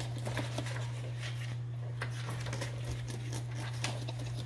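African crested porcupine chewing its food: irregular soft crunches and clicks over a steady low hum.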